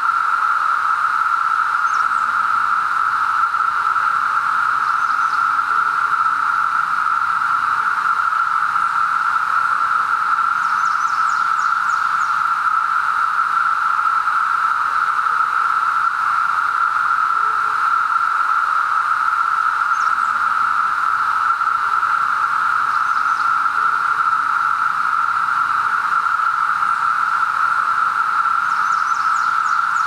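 Dense chorus of 17-year periodical cicadas (Brood XIII): a constant, loud hum held at one steady pitch, with a few faint, short high chirps on top.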